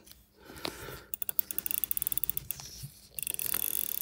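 FHF 72 watch movement being wound by turning its crown with the fingers: the click rides over the ratchet wheel in two runs of rapid ticks, with a short pause about three seconds in, as the mainspring is wound up.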